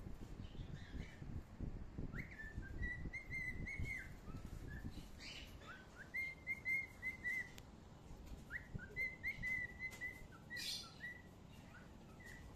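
A bird chirping: runs of short, clear whistled notes, each starting with a quick upward slide, repeated in three bursts.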